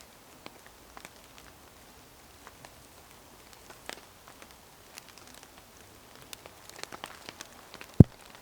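Scattered raindrops tapping irregularly on tent fabric, thickening a little near the end, with one loud dull thump about eight seconds in.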